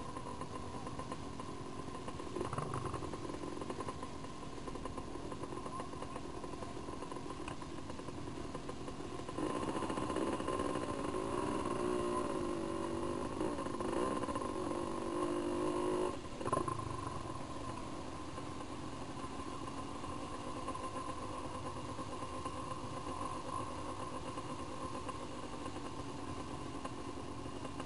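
Dirt-bike engines running at idle. A louder stretch in the middle has an engine revved up and down unevenly for several seconds, then dropping back to a steady idle.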